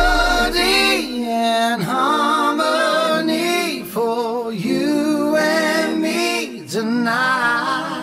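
Music: a singing voice holding long, wavering notes that glide up and down in phrases, with little else behind it.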